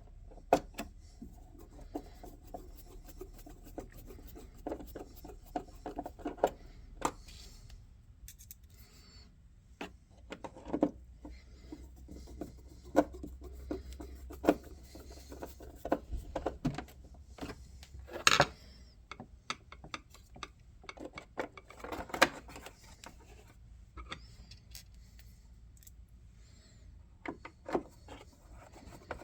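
Irregular clicks, knocks and rubbing as the parts of a Cafe Bueno CB-3000 coffee machine are handled and fitted back into place by hand. The sharpest knocks come about 18 and 22 seconds in.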